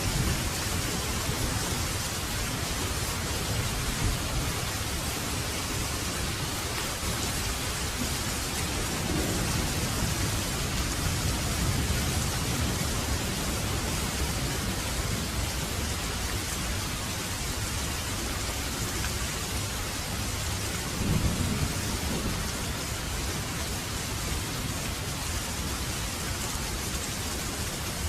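Steady rain falling, an even hiss of drops. Under it runs a low rumble that swells briefly twice.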